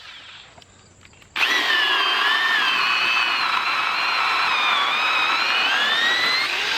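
Black & Decker Alligator Lopper corded electric chainsaw switched on about a second and a half in, cutting into an apple-wood log. Its motor whine sags in pitch as the chain bites under load and climbs again near the end as the cut nears completion.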